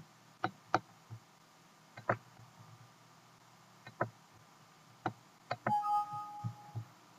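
Computer mouse clicks, a single one or a quick pair every second or so. Near the end comes a Windows alert chime, two steady tones held together for about a second, as a warning message box pops up.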